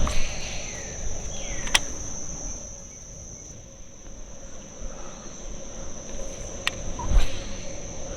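Insects calling in a steady high-pitched drone, with a few sharp clicks over it.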